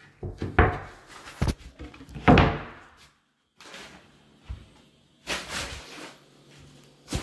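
A series of wooden knocks and bumps, with a short scraping stretch about two-thirds of the way in, from a plywood bathroom vanity cabinet being handled.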